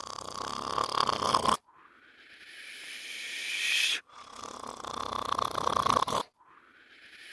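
A cartoon narrator's snoring played in reverse. Rough snorting breaths alternate with smoother airy ones, each swelling louder for two seconds or so and then cutting off abruptly.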